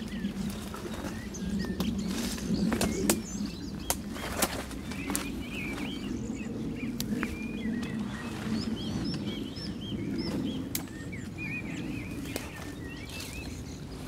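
Dry spruce branches rustling and twigs snapping with sharp, scattered cracks as someone forces a way through dense conifer undergrowth. Small birds chirp in short calls throughout, over a low steady rush.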